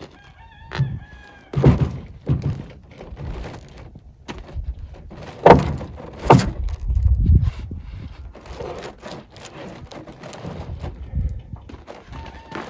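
Heavy wooden knocks and thuds as old 2x6 boards and a large roll of underground power cable, several hundred pounds, are shoved and shifted on a truck bed. Two sharp, loud knocks come about halfway through, with low thuds and scraping between.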